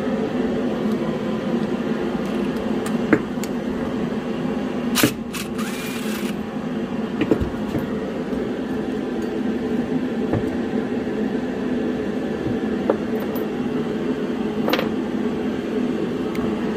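A steady low machine hum, with a few sharp metal clicks and clanks from work on the old engine's clutch bolt. A brief hiss comes about five seconds in.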